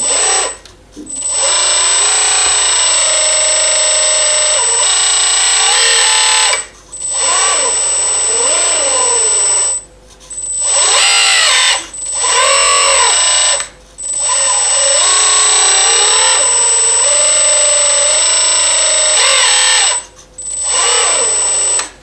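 Electric motor and hydraulic pump of a 1:14 scale RC4WD Bobcat R350 compact track loader model whining in repeated runs, about seven in all, with short gaps between them. The pitch sags and rises within each run as the hydraulics tilt the bucket.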